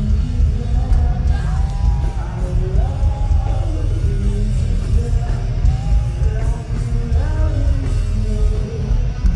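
Alternative metal band playing live and loud: heavy distorted guitars, bass and drums under a sung vocal melody.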